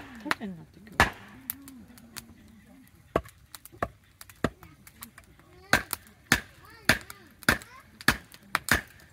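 Hatchet being hammered down through an upright piece of firewood to split it for kindling: sharp wooden knocks, a few spaced out at first, then a steady run of about one every half second. The wood is quite hard.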